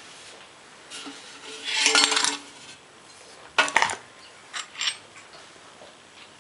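Metal clanking and clattering as a WWII German steel gas mask canister and its parts are handled. A ringing clank comes about two seconds in, a sharper clatter a little later, then a few light clicks.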